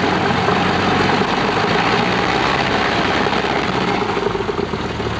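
Cabin noise of a Cessna Skyhawk II's four-cylinder Lycoming piston engine and propeller running steadily at low power. The engine note settles into a steadier low throb near the end.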